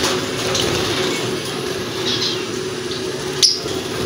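Hand-pumped pressure garden sprayer spraying a steady hissing stream of water into a bird cage, with a sharp click about three and a half seconds in.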